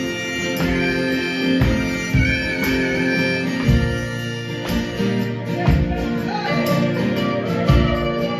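Live band playing an instrumental passage of a country-rock song: acoustic guitars strumming, a lead melody line wavering over them, and a low thump about once a second keeping the beat.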